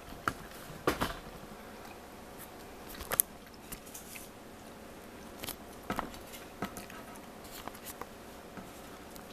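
Quiet room tone with a faint steady hum, broken by scattered small clicks and light rustles, the sharpest about three seconds in.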